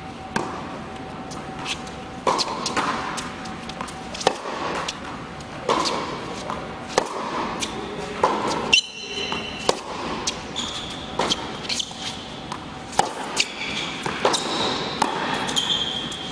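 Tennis rally on an indoor hard court: sharp pops of rackets striking the ball and the ball bouncing, coming irregularly about every half second to a second and echoing in the hall. Short high squeaks of sneakers on the court come in now and then.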